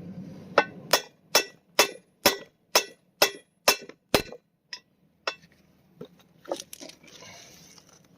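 Hammer blows on metal, driving a new U-joint bearing cap into the driveshaft yoke: about eleven ringing strikes at roughly two a second, then a couple of lighter taps near the end.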